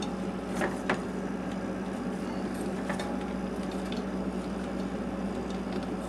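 A few faint clicks and scrapes of a wrench on the plastic water-line nut at a refrigerator's water inlet solenoid valve, over a steady low hum.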